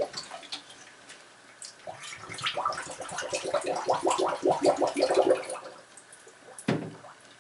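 Bathwater splashing and sloshing as a hand pushes a model submarine's hull through a filled bathtub. There is a sharp knock at the start and another one near the end.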